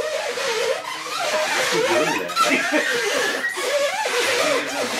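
People laughing, with talk mixed in.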